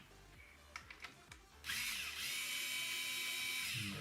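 A few light handling clicks, then a 3.6 V cordless electric screwdriver's small motor and gearbox starts up and runs at a steady whine for about two seconds while turning a screw, stopping just before the end.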